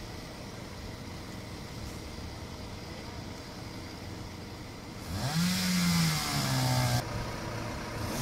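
Steady outdoor background noise, then about five seconds in a fire engine's diesel engine revs up suddenly, its pitch rising, holding and dropping over about two seconds, with another rev rising near the end.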